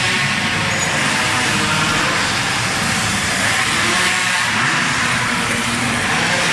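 Several minimoto pocket bikes' small two-stroke engines running as the bikes lap a tight track, a steady high-pitched drone.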